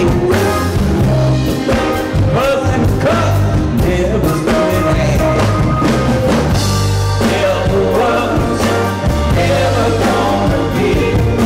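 Rock music with singing and a drum kit, loud and steady.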